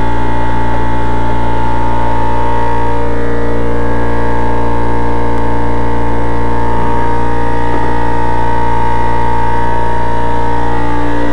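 A loud, steady machine drone with several unchanging tones, from something running continuously in the background.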